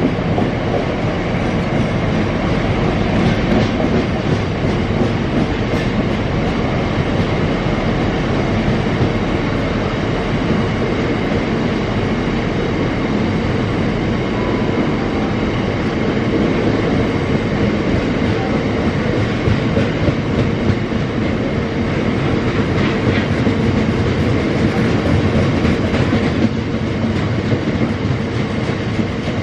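Long freight train of open box wagons rolling past, the steel wheels rumbling and clattering on the rails in a steady, unbroken din.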